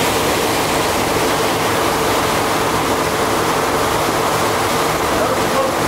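Steady rush of water and wind from a boat under way, with a faint, steady low engine hum beneath it.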